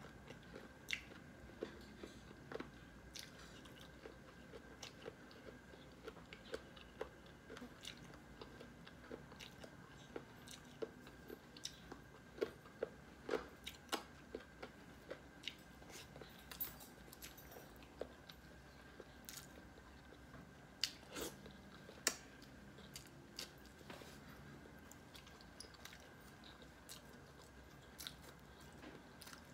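A person chewing mouthfuls of rice and chicken curry eaten by hand, close to the microphone: soft wet chewing with irregular clicks and smacks of the mouth. A faint steady high tone hums underneath.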